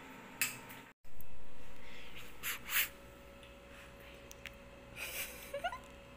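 A person blowing on a forkful of hot soupy noodles to cool it, in a few short puffs of breath. A brief low rumble comes about a second in, and a faint rising squeak comes near the end.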